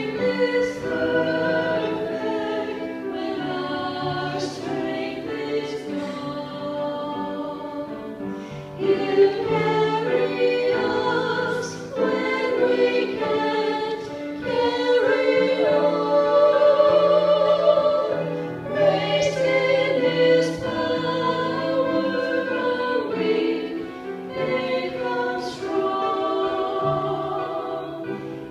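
A small group of women singing a praise song together, with piano accompaniment.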